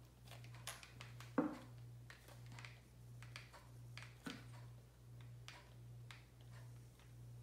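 Faint, scattered clicks of a handheld game controller's buttons over a steady low hum, with a slightly louder knock about a second and a half in and another a little past four seconds.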